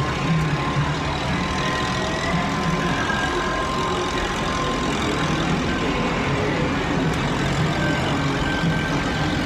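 Amusement park ambience dominated by a steady low mechanical rumble, with a faint held tone over the first few seconds and a few short higher tones.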